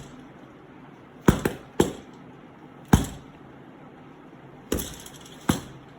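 A series of six sharp, hard knocks at irregular intervals, some in quick pairs, each ringing briefly: household objects being struck to make a sound effect.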